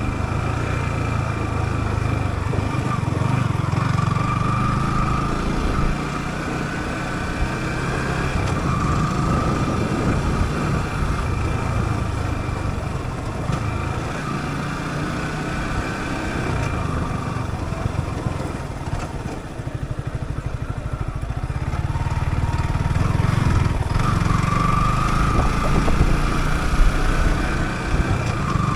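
Yamaha YZF-R15 single-cylinder four-stroke motorcycle engine ridden off-road, the revs repeatedly rising under throttle and dropping back as the rider shifts or eases off.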